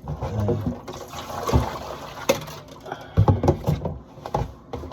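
Dishes being washed by hand in a sink: water sloshing and splashing, with irregular clunks and knocks of dishes against each other and the sink.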